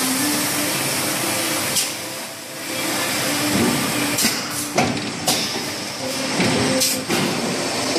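Extrusion blow molding machine running: a steady hiss of compressed air over a machine hum, with sharp pneumatic clacks and knocks from the bottle-trimming station, several of them in the second half.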